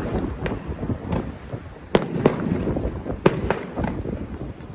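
Aerial fireworks going off: an irregular run of sharp bangs and cracks from shells bursting overhead, the loudest about two seconds in.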